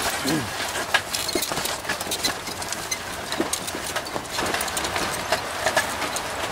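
Wooden ox cart rolling along a dirt track, its wheels and frame rattling with frequent irregular clicks and knocks and a brief creak about half a second in.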